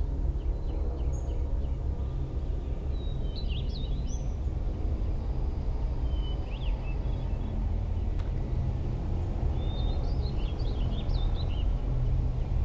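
Outdoor woodland ambience: a steady low rumble, with small birds chirping in several short clusters over it.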